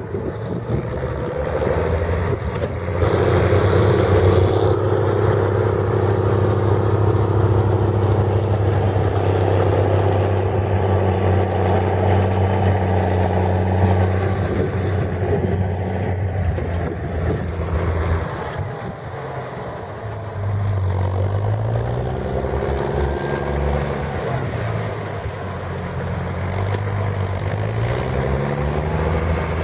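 International 1455 XL tractor's diesel engine running through a straight-pipe exhaust. It holds a steady speed, getting louder about three seconds in, then is revved up and down several times in the second half.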